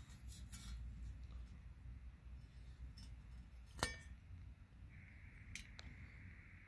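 Chrome-plated headlight bezels from a 1962 Lincoln Continental being handled, with faint handling clicks and one sharp metallic clink with a short ring a little under four seconds in.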